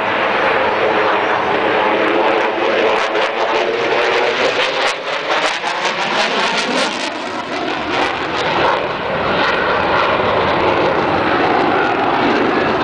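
F-16 fighter jet's single jet engine passing overhead: a loud, continuous roar whose tone sweeps and shifts as the jet moves across the sky.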